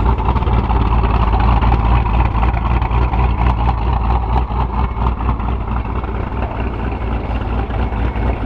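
V8 car engine idling steadily with an even, low rumble, and a steady wash of background noise above it.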